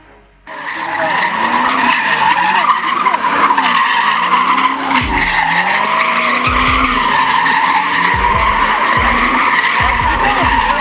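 Vehicle tyres screeching continuously over an engine whose revs rise and fall again and again. It starts suddenly about half a second in, and dull low thumps come through in the second half.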